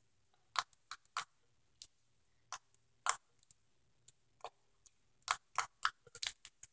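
Clear slime squeezed and poked by hand, making small sharp clicking pops at irregular intervals, coming quicker near the end.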